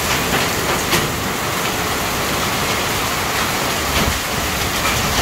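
Hail and rain pelting down in a dense, steady hiss on the awning and the ground, with a few sharper ticks of hailstones striking. A car's tyres swish through the slushy hail on the road.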